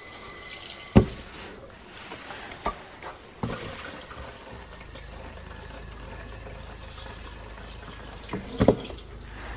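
Diesel fuel pouring from a jug spout into a Caterpillar D4's steering clutch compartment, a steady stream splashing into the sludge in the metal case. A sharp knock about a second in and another near the end.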